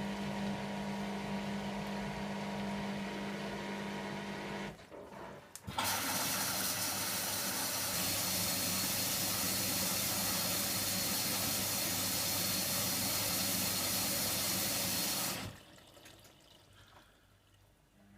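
Hoover Nextra washer dryer taking in water: after a steady hum, an even rush of water starts about six seconds in, runs for about ten seconds and cuts off sharply as the inlet valve closes.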